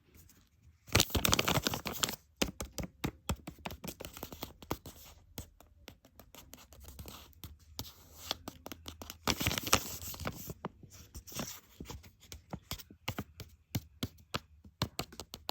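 Blind bag packaging being torn open and crinkled close to the microphone, in bursts of crackling and tearing with many sharp crackles, loudest about a second in and again near the middle.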